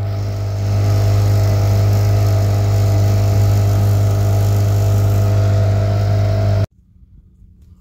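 Hangkai 12 hp outboard motor running steadily at speed, pushing the boat through the water. It cuts off abruptly near the end.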